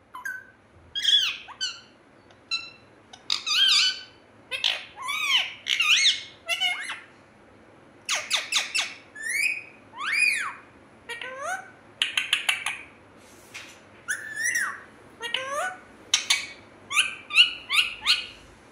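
Male rose-ringed parakeet (Indian ringneck) squawking and chirping in a long series of high-pitched calls. They come singly and in quick runs of three to five, many bending up and down in pitch, with short pauses between.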